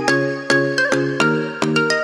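Background music: a bright electronic tune of quick, sharply struck notes, about four a second.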